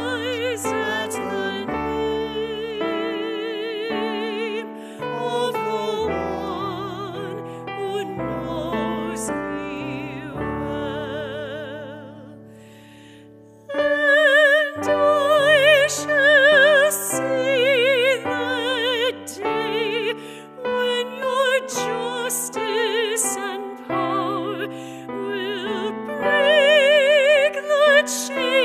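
A woman sings solo with strong vibrato, accompanied by piano. The music dies away about twelve seconds in and starts again, louder, a second and a half later.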